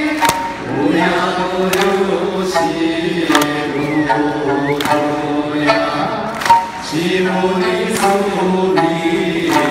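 Live Okinawan folk song sung by stage singers and a large crowd over a stadium sound system, with sanshin accompaniment and clapping on the beat. The singing holds long, steady notes, and sharp strokes fall about once a second.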